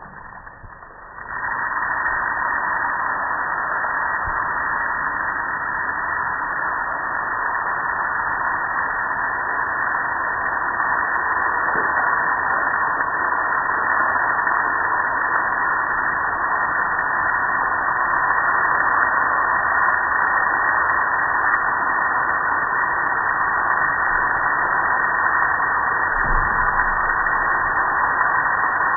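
Water spray hitting a soapy gas grill, starting suddenly about a second in and then running steadily as a loud hiss.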